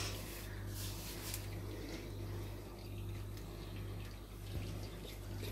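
Faint rustling and handling of gauze as a bandage is wrapped around a puppy's leg, over a steady low hum.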